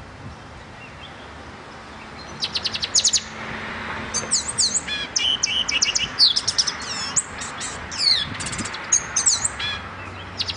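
Caged black-and-white songbird singing. About two seconds in it starts with a quick run of repeated high notes, then goes on in a varied string of whistled phrases that swoop up and down, with another quick run of notes near the end.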